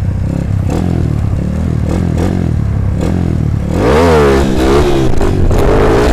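Kawasaki KLX150 supermoto's single-cylinder four-stroke engine running while ridden, then revved hard about four seconds in, its pitch climbing and swinging up and down as the throttle is worked to lift the front wheel into a wheelie.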